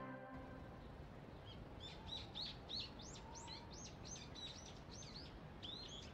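Faint birds chirping: a string of short, quick chirps starting about a second and a half in, over a soft outdoor hiss.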